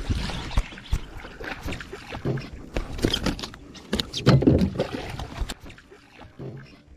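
A hooked bass splashing and thrashing at the water's surface beside a kayak as it is reeled in, with irregular knocks and clicks from the kayak and tackle. The splashing is loudest about four to five seconds in.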